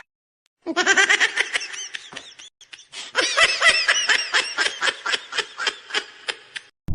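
Someone laughing in quick, repeated pitched bursts, in two bouts: a shorter one that fades out, then after a short gap a louder, longer one.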